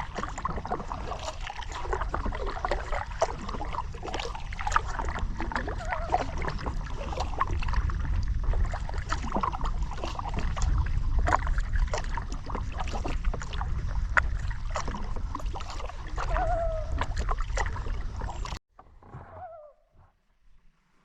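Kayak paddle strokes splashing and water sloshing and gurgling around the hull, with a low rumble underneath. Near the end it cuts off abruptly to a much quieter stretch with a short wavering call.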